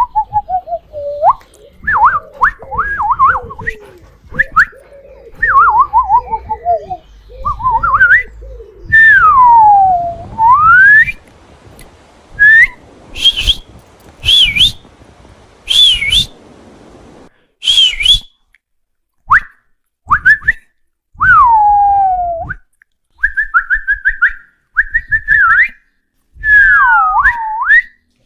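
A series of whistles for calling a dog's attention: long falling and rising pitch glides, quick runs of short falling notes, and a few shriller whistles in the middle, separated by short pauses.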